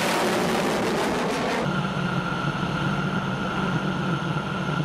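Jet aircraft noise: a fighter jet's engine roar with a falling pitch as it passes. About a second and a half in, this changes abruptly to a steady aircraft engine drone with a low hum and a high whine.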